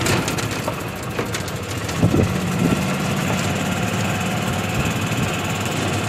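Vehicle engine running steadily, heard from inside the cab as it moves slowly, with a few knocks and rattles at the start and about two seconds in.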